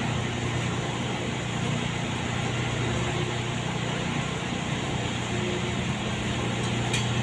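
Steady low hum of an idling truck heard from inside its cab, with an even hiss of rain over it. A short click sounds near the end.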